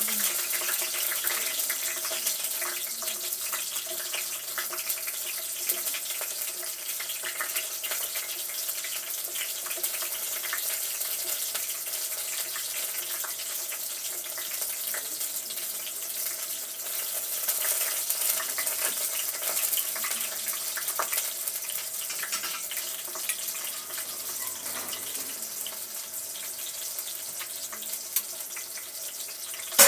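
Food frying in cooking oil in a pan, a steady sizzling hiss with small crackles throughout.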